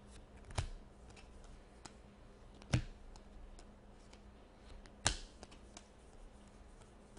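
Baseball trading cards being handled and flipped through a stack by hand: three sharp clicks about two seconds apart, with faint card rustling and small ticks between.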